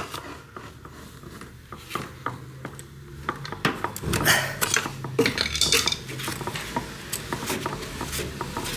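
Irregular light clinks and taps of a screwdriver and metal parts, with the handling of a rubber drive belt, as a new belt is worked onto the drum and motor pulley of a Bosch tumble dryer.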